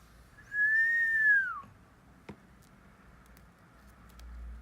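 A single high whistle-like tone about a second long that rises slightly and then falls away, followed a moment later by one soft click.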